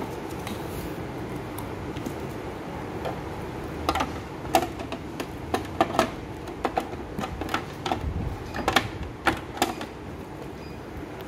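Hard plastic parts of a juice extractor knocking and clicking as they are handled, a run of sharp clicks from about four seconds in until near the end, over a steady background hum.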